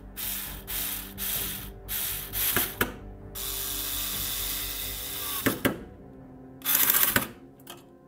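Handheld electric screwdriver driving screws into a metal fan bracket: several short runs in quick succession, one longer steady run in the middle, two sharp clicks about five and a half seconds in, and a last short run near the end.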